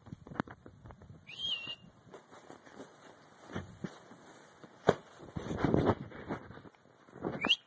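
Bull terrier puppy yawning, with two short high-pitched squeaks: one about a second in and a rising one near the end. Soft clicks and breathy rustling come between them.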